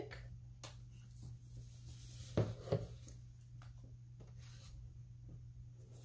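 Soft rubbing and small taps as a white glue bottle's nozzle squeezes glue onto a wooden craft stick on a tabletop, with two duller knocks about two and a half seconds in.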